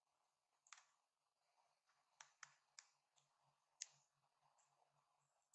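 Faint, sharp clicks of a plastic guitar pick prying at the edge of a phone's glued-down screen, about half a dozen spread unevenly.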